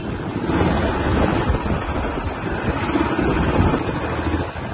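Wind rushing over the microphone of a moving motorcycle, with the bike's engine running underneath.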